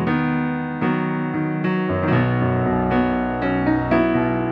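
Keyboard piano patch playing chords, with a low bass note coming in about two seconds in. The piano is running through the Behringer X32's channel compressor as the threshold is brought down toward about 3 to 4 dB of gain reduction.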